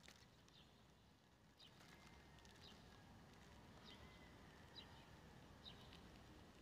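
Near silence: faint low city hum with a bird chirping softly, short high chirps about once a second.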